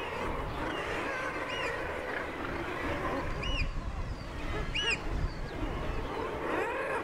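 Seabird colony calls over a low rush of surf. Three short, shrill piping calls of Eurasian oystercatchers stand out, about one and a half, three and a half, and five seconds in.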